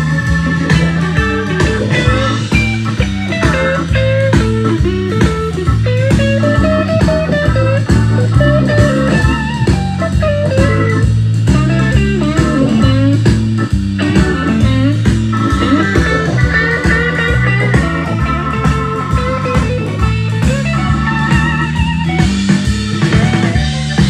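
Blues-rock music with guitar over a steady bass and drum beat, played back through a Pioneer VSX-D903S receiver and its speakers.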